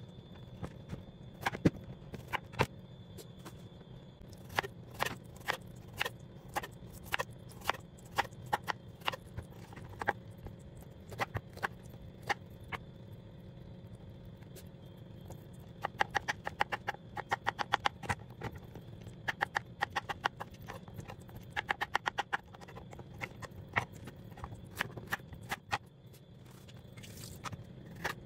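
Kitchen knife cutting bottle gourd on a wooden cutting board: irregular knocks of the blade against the board, with two runs of quick chopping strokes, about ten a second, in the second half. A steady low hum runs underneath.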